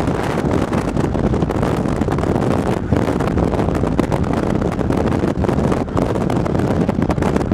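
Steady rush of wind buffeting the microphone over the road noise of a car driving at speed.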